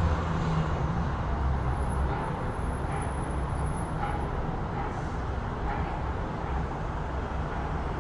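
City street traffic: a vehicle's low rumble, loudest at the start, fades away over the first couple of seconds, leaving a steady hum of background traffic.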